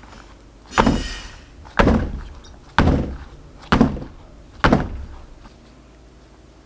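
A silicone heart mould filled with mango mousse is rapped down on the worktop five times, about once a second, each a dull thud: knocking it flat to level the mousse and drive out air bubbles.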